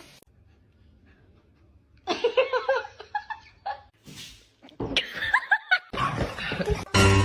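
Quiet at first, then a person laughing in loud, choppy bursts from about two seconds in, with more laughter after a short break near the middle.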